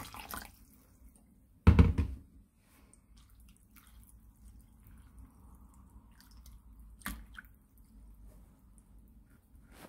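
Tap water pouring into a plastic bowl of cut paper-bag scraps stops about half a second in, then a sudden loud splash and thump as a hand pushes the scraps under the water, followed by faint dripping and small splashes with a sharp tick near the seventh second.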